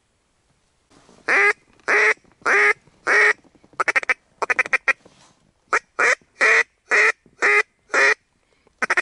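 Duck quacking close by: four drawn-out quacks about half a second apart, a fast run of short chattering notes, then six more quacks at the same steady pace.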